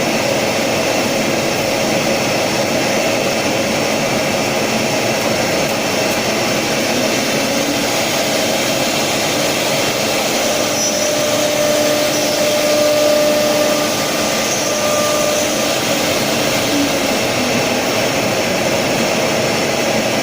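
Woodworking CNC router with four cylinder spindles running, a loud steady whir. Faint steady tones come in around the middle for a few seconds.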